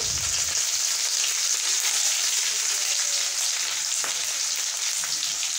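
Curry leaves, chopped onion and panch phoran sizzling in hot oil in a kadhai for a tadka: a steady, even frying hiss.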